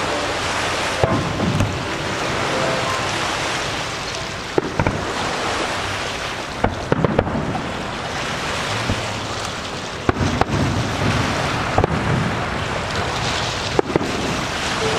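Aerial firework shells bursting overhead: a series of sharp bangs a few seconds apart, some coming in quick clusters of two or three, over a steady rushing noise.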